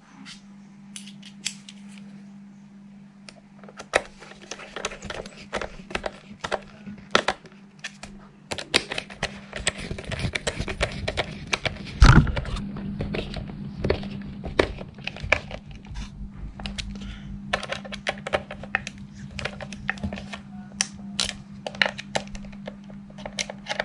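Screwdriver turning screws into the plastic back housing of a Mini rev counter: many small clicks and ticks of the driver and plastic, with one loud knock about halfway through. A steady low hum runs underneath.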